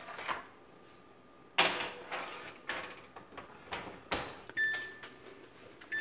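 Metal muffin pans clattering into the oven and the oven door shutting, with a loud clank about a second and a half in and a sharper knock near the end of the clatter. Near the end the LG electric range's control panel beeps as its buttons are pressed.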